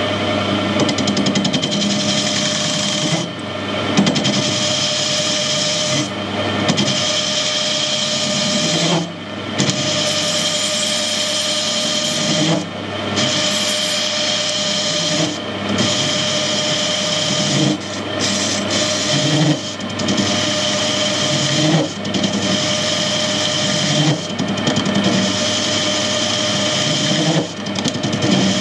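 Metal lathe running with a single-point tool cutting across the face of a lawnmower pulley, machining off a weld repair: a steady motor and gear hum with the scraping of the cut. The cutting noise drops out briefly every two to three seconds.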